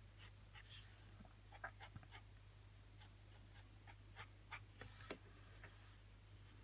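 Faint scratching of a graphite sketch pencil drawing quick short strokes on paper, a dozen or more light strokes at an uneven pace, which stop about a second before the end.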